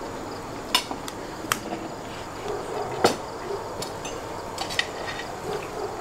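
Tableware and metal shashlik skewers clinking and knocking as platters and plates are set down on a wooden table. There are a few sharp clinks spread about a second apart, the loudest about three seconds in, over a steady background hiss.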